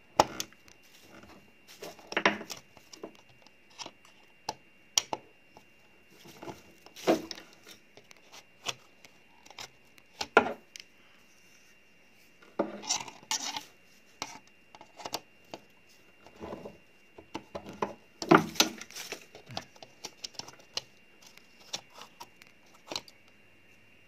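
Hand work with a Phillips screwdriver taking a plastic smoke-detector mounting plate off a ceiling: scattered clicks, knocks and scrapes of plastic and metal at irregular intervals, the loudest bunched about 2, 7, 10, 13 and 18 seconds in.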